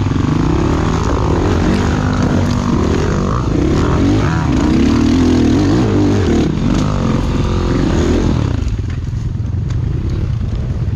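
Enduro motorcycles running and revving, the engine pitch rising and falling with the throttle and several engines overlapping. About eight and a half seconds in, the revving drops away to a lower, quieter running sound.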